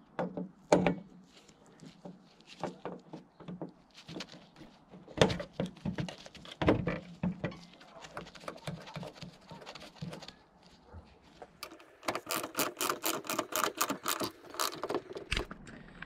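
Clicks and knocks of a BMW E53 X5 outer door handle being worked into place on the door. Near the end comes a fast, even run of clicks, about six a second, from a ratchet socket wrench tightening the handle's retaining nut.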